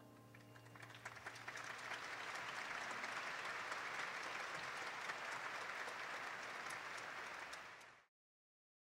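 Audience applauding, swelling over the first two seconds as the last piano and vibraphone chord dies away, then holding steady until it cuts off suddenly near the end.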